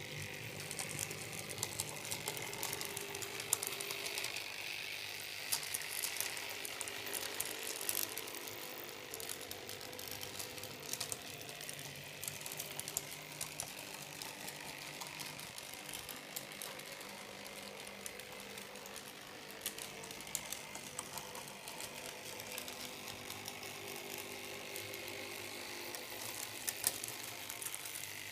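TTm-scale model NGTD8DD tram running along layout track, the small motors of its two Tomix drive bogies whirring steadily through their gears, with frequent sharp clicks.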